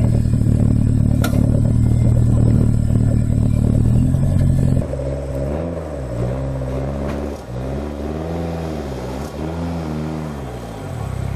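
Off-road 4x4 competition vehicle's engine running steadily at high idle, then about five seconds in revving up and down again and again as the truck works through a deep muddy rut.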